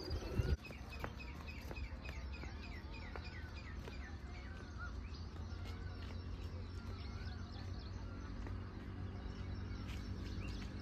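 Small birds calling: a run of quick chirps, about four a second, then a few slower arched whistles, over a low steady outdoor rumble. A short rush of noise in the first half second.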